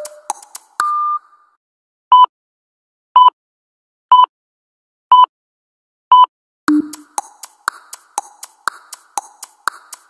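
A clicking electronic music beat stops about a second in, closed by a short beep. After a pause come five short electronic timer beeps, one a second, before the clicking beat starts again.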